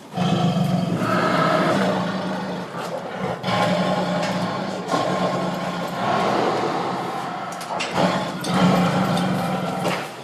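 Tiger growling: a run of long, rough, low growls, each lasting a few seconds, with short breaks between them.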